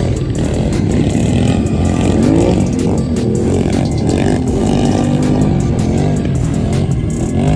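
Quad ATV engines revving up and down over and over as riders pull wheelies, several machines at once, with music playing along.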